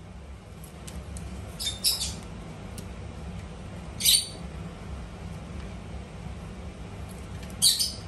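Indian ringneck parakeets giving short, shrill squawks: a quick pair about two seconds in, another at about four seconds and one more near the end.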